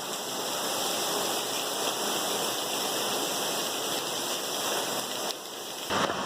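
Heavy cyclone rain falling in a steady hiss. It dips briefly about five seconds in, then comes back.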